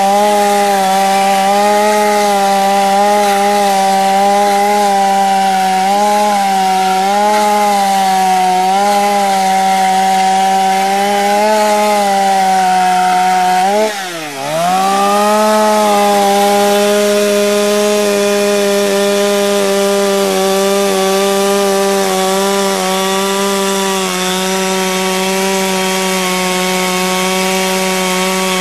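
Chainsaw running at high revs as it carves into wood, its pitch holding steady; about halfway through the engine note dips sharply and briefly, then climbs straight back up.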